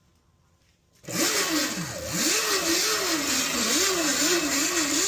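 ETM RTR electric bike's motor spinning up and driving its aftermarket gold chain: a whine that rises and falls in pitch as the throttle is worked, over a loud whirring chain noise. It starts about a second in and is still running at the end, its pitch starting to drop.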